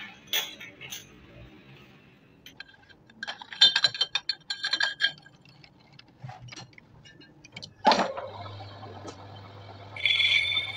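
Metal clinking as the lathe chuck is tightened with its chuck key. About eight seconds in, the lathe's electric motor starts and runs with a steady hum, and near the end a high ringing squeal sets in as the cutting tool bites the spinning steel rod.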